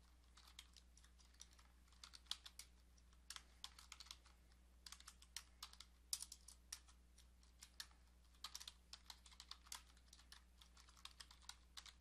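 Typing on a computer keyboard: faint runs of irregular keystrokes in short clusters with brief pauses between words. A steady low electrical hum sits beneath.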